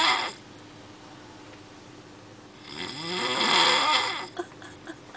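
A young man snoring in his sleep: one snore trails off right at the start, then after a pause of about two seconds comes a second long snore, lasting nearly two seconds.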